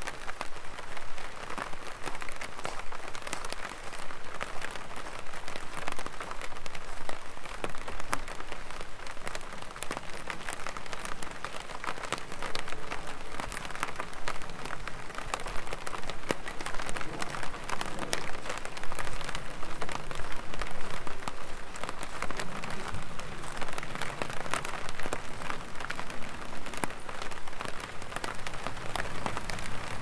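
Light rain falling on an umbrella overhead: a steady, dense patter of many small drop hits.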